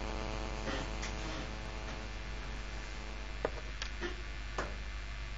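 Steady electrical mains hum with many even overtones, with a few faint clicks between about three and a half and four and a half seconds in.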